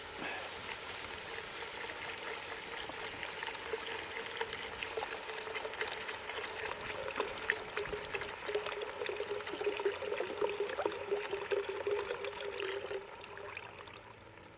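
Chicken broth poured in a steady stream into a cast-iron Dutch oven. The pour stops about thirteen seconds in.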